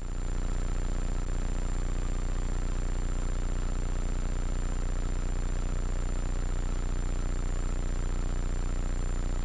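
Hummingbird helicopter in level cruise flight: a steady engine and rotor drone with a constant low hum that stays even throughout.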